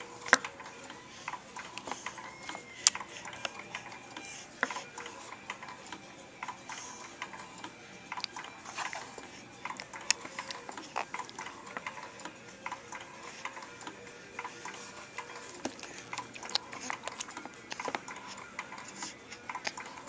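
Baby swing clicking and ticking irregularly as it moves, with a few louder clicks, over faint hiss and a few short faint tones.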